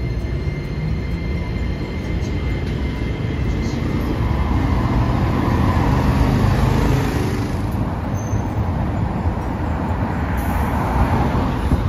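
City street traffic beside tram tracks, with a motorcycle going by about halfway. A low-floor Hiroden Green Mover tram pulls away at the start, and near the end a Green Mover LEX tram approaches, its rumble and a faint whine growing louder.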